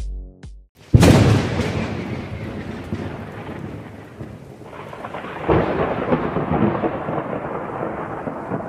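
Thunder sound effect: after the last beat of electronic music, a sudden loud thunderclap about a second in decays into a rolling rumble with a rain-like hiss. A second swell of rumbling thunder builds about five seconds in and slowly fades.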